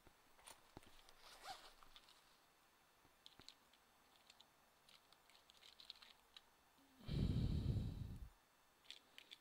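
Scattered faint clicks and taps, then about seven seconds in a loud rustling rub lasting over a second: handling noise from the laptop being worked on.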